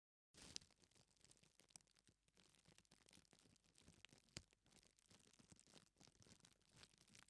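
Faint, irregular scratching and crackling, as of something being rubbed or crinkled, with two sharp clicks about half a second in and about four and a half seconds in.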